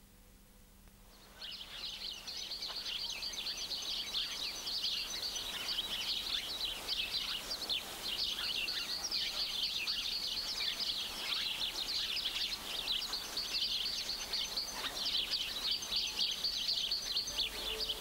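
Natural ambience: a dense, continuous chorus of rapid high-pitched chirping from wild birds and insects, fading in about a second in and holding steady.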